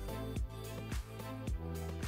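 Background music with a steady beat over held tones.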